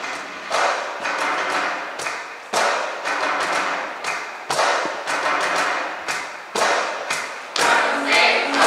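Instrumental song intro on a cajón and acoustic guitar: a steady beat of thumps, stronger hits about every two seconds with lighter ones between. The choir starts singing near the end.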